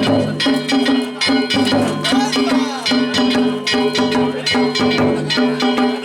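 Danjiri float festival music (narimono): taiko drums and metal gongs struck in a fast, steady, repeating rhythm, the gongs ringing between strokes.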